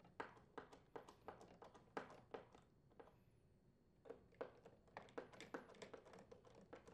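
Faint, irregular clicks and ticks of a screwdriver's hex nut-driver tip turning and seating on the ice maker's mounting screws, with a pause of about a second and a half midway.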